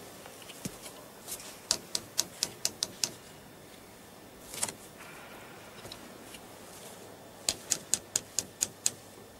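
Manual typewriter keys struck in two quick runs of about seven or eight clacks each, four or five a second, with one heavier clack between them.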